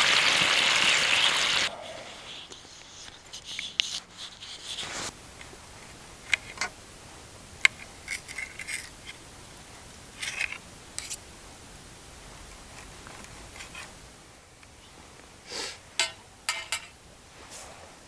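A steady rush like pouring water stops about two seconds in. After it come scattered small clicks, taps and short scrapes of hand-handled gear, spaced irregularly.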